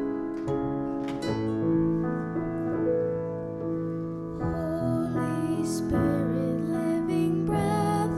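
Slow instrumental music on keyboard: held chords with single plucked-sounding notes at first, a fuller texture with wavering upper notes joining about halfway through.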